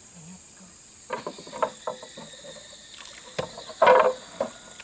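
Scattered knocks and bumps from a man moving about and working in a small boat's hull at the water's edge, with a louder splash about four seconds in. Insects buzz faintly and steadily behind.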